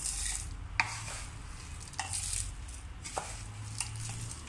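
White plastic spoon scooping roasted whole spices (dried red chillies and seeds) off a tray and tipping them into a clear plastic chopper jar: dry rattling and rustling of the spices, with about four sharp clicks of the spoon against the jar and tray.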